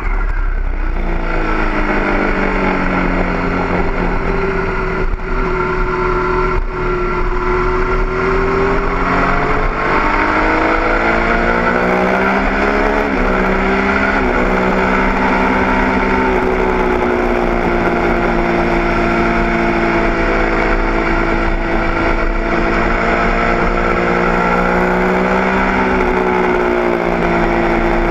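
Onboard sound of a stock Triumph Daytona 675's three-cylinder engine running at speed on track, with wind rush. The engine note slowly rises and falls with the throttle through the corners, with a sudden jump in pitch about halfway through.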